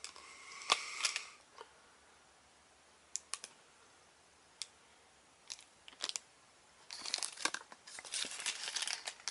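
A paper instruction sheet rustling and crinkling as it is handled and turned over, in a burst about the first second and again near the end, with a few light clicks in between.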